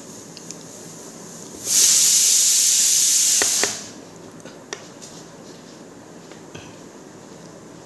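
A loud, steady hiss lasting about two seconds: it starts abruptly about two seconds in and cuts off just before four seconds. A few faint clicks fall around it.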